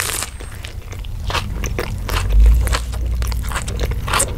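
Close-miked ASMR eating sounds: crunchy bites into and chewing of crispy breaded fried food, a series of sharp crunches. A steady low hum grows louder about halfway through.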